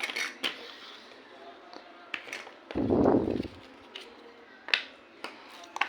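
Small plastic toy pieces and packaging clicking and tapping as they are handled and unpacked. About three seconds in comes a louder muffled thump, lasting just under a second.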